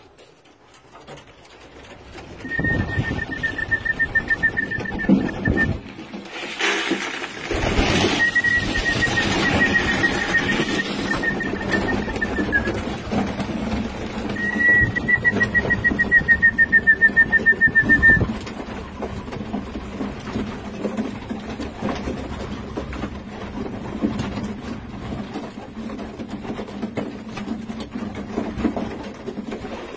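Pigeons in a loft cooing and feeding at a trough feeder, with a short loud noisy burst about seven seconds in. Three long trilling whistle calls at a steady high pitch sound over the first eighteen seconds.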